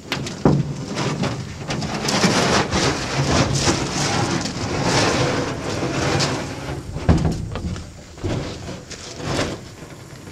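A canoe hull being flipped over, hoisted and slid onto a vehicle's roof rack: a continuous scraping, rumbling noise from the handled hull, with knocks about half a second in and again about seven seconds in.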